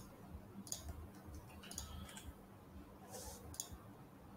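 Faint, scattered clicks of a computer mouse and keyboard, about six in all, over a faint low steady hum.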